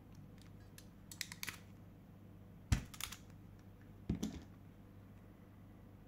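Parkside ferrule crimping pliers clicking as they crimp a blue 2.5 mm² wire end ferrule onto a wire. There is a quick run of light clicks about a second in, then sharper clicks near three and four seconds in.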